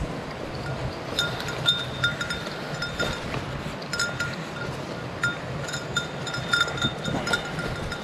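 Small bear bell jingling irregularly with the wearer's steps, each strike ringing at the same bright pitches, over a steady rush of a mountain stream.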